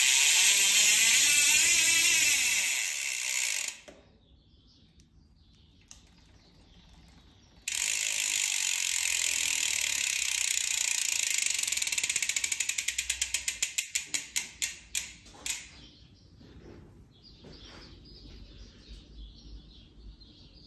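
Carbon-Ti X-Hub SP rear freehub, a roughened titanium 56-tooth ratchet ring with four pawls, freewheeling with an extremely loud, fast buzz as the rear wheel spins. The buzz cuts off a few seconds in and starts again suddenly near the middle. It then slows into separate clicks that space out and stop as the wheel coasts to a halt.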